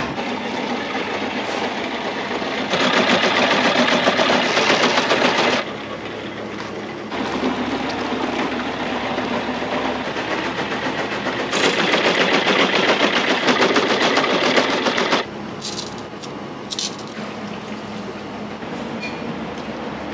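Commercial kitchen noise: a steady rushing hiss that twice gets abruptly louder for about three seconds, with a couple of sharp clinks near the end.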